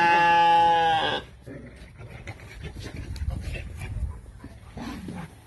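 A sheep bleats once, one long, steady-pitched call of about a second at the start, then faint knocks and shuffling.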